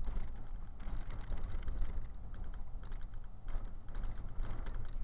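A car's road and engine noise heard from inside the cabin through a dashcam microphone: a steady low rumble with irregular small clicks and rattles.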